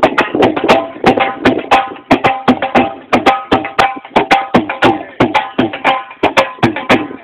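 Drum beaten by hand in a fast, steady rhythm of several sharp strokes a second.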